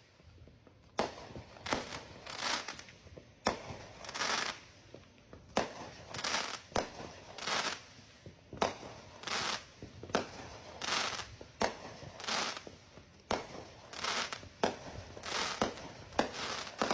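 A fireworks display, with fireworks bursting in sharp bangs about every second or two, each followed by a hissing crackle.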